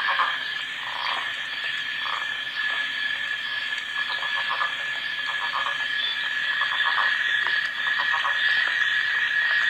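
Northern leopard frog calling: repeated short rattling, snore-like bursts of rapid pulses at irregular intervals. A steady high-pitched tone runs behind them.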